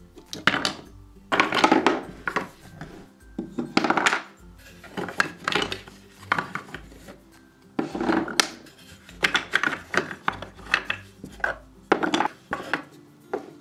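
Flat wooden animal pieces clacking and knocking against a wooden shape-sorter barn and each other as they are lifted out and set down, a quick irregular series of sharp wooden knocks.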